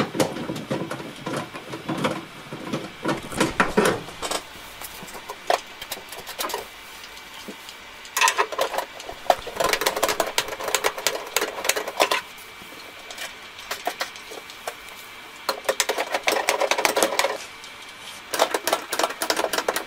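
Ratchet wrench clicking fast as a nut is turned inside a car tailgate's sheet-metal panel. The clicking comes in several bursts of one to four seconds, with short pauses between.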